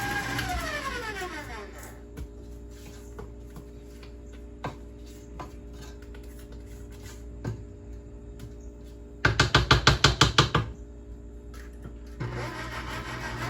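Electric stand mixer winding down, its whine falling away over the first couple of seconds. A spatula then scrapes and clicks against the mixing bowl, with a quick loud rattle of knocks about nine seconds in, before the mixer starts up again near the end.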